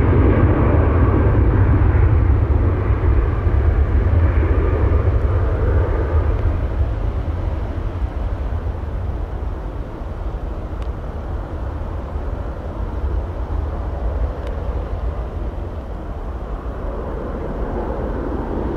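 Jet airliner's engines rumbling, loud at first and fading over the first half into a lower, steady rumble.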